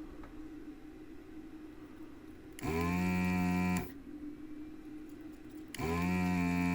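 Desoldering station's built-in vacuum pump running twice, about a second each time, as the desoldering gun's trigger sucks molten solder from a chip's pins. Each run is a steady pitched hum that rises briefly in pitch as it starts.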